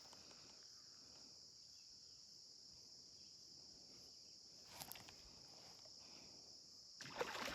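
Near silence with a faint, steady high-pitched insect chorus. A brief faint rustle about five seconds in, and a louder burst of noise near the end.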